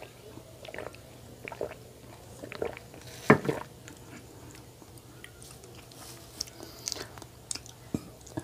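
Close-miked mouth sounds of drinking orange juice from a glass: small wet clicks and swallows scattered throughout. About three seconds in comes one much louder knock as the glass is set down.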